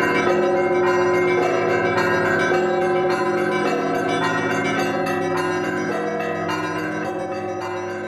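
Russian Orthodox monastery bells ringing together in a festive peal (trezvon): several bells of different pitches struck in quick overlapping patterns over a deep sustained hum. The peal grows gradually quieter over the last few seconds.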